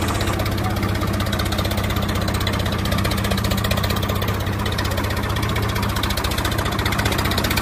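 An engine idling steadily, with a rapid, even chugging pulse and no change in speed.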